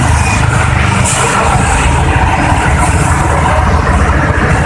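A motor vehicle engine running close by on the road, a steady low rumble.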